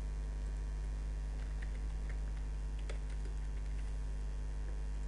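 Typing on a computer keyboard: a short run of key clicks starting about a second and a half in, over a steady electrical mains hum.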